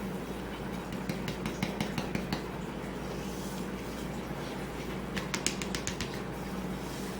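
Light clicking and rattling from handling the cut-open plastic water-filter cartridge and its loose granules, in two short runs of quick clicks about a second in and again about five seconds in, over a steady faint hum.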